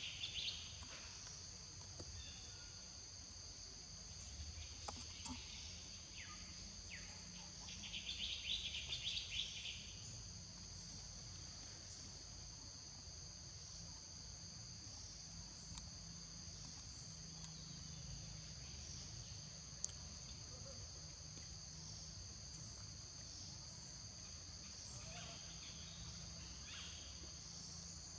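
Insects droning steadily on two even high pitches, with short buzzy trills breaking in at the start and again about eight seconds in.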